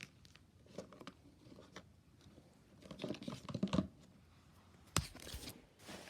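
Small items and plastic packaging being handled while gift bags are packed: scattered light taps and rustles, busier about three seconds in, with one sharp click about five seconds in.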